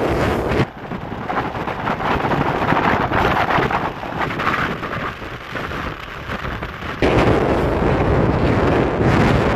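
Wind buffeting the microphone on a moving motorcycle, mixed with road noise. The low rumble drops away abruptly just after the start and returns suddenly about seven seconds in.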